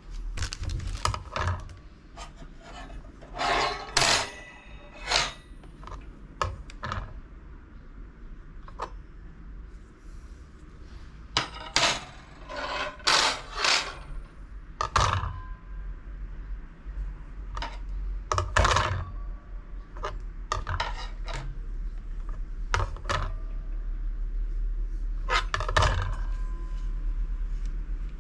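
Thin steel bicycle disc brake rotors being handled: an irregular run of sharp metal clinks, clatters and scrapes, a few of them ringing briefly.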